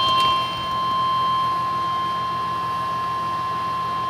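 NOAA Weather Radio warning alarm tone: one steady, unbroken high-pitched tone received over a weather radio, with a faint hum and hiss beneath it. It is the alert signalling that a severe weather warning broadcast follows.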